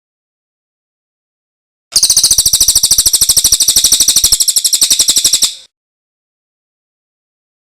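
A songbird's trill: a very fast run of identical high, sharp notes that starts about two seconds in and stops abruptly about three and a half seconds later.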